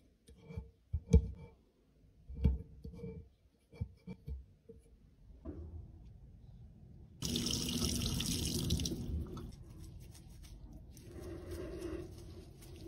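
Scratchy clicks of a hobby-knife blade scraping old pressed powder out of a metal compact pan. About seven seconds in, tap water starts running into a stainless steel sink, loud for about two seconds and then quieter, while a makeup sponge is squeezed and washed under it.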